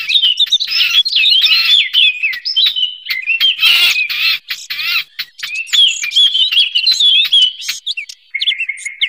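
Eurasian blackcap singing: a fast, varied warble of clear whistled phrases mixed with harsh scratchy notes, with a few steadier, lower notes near the end.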